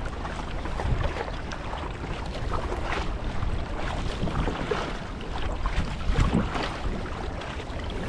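Water splashing and lapping irregularly against a fishing kayak's hull, with wind buffeting the microphone as a steady low rumble.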